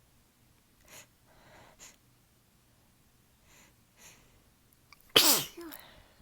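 A person taking several short, sharp breaths in as a sneeze builds, then one loud sneeze about five seconds in, its pitch dropping as it goes. The sneeze is part of an allergy sneezing fit driven by a strong nasal tickle.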